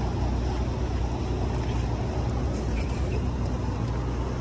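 Steady low engine hum, as of a vehicle idling close by, over a constant hiss.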